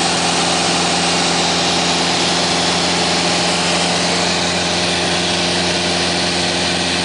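Light aircraft's piston engine and propeller, heard from the cockpit, running steadily at an even pitch under a rush of wind noise during an aerobatic roll.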